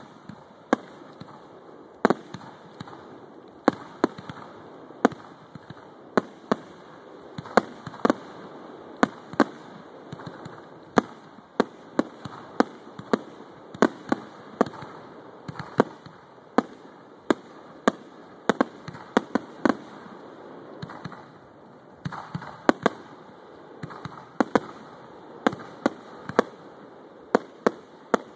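Aerial fireworks going off overhead: a long, irregular series of sharp bangs, about one or two a second, with a steady noise between them.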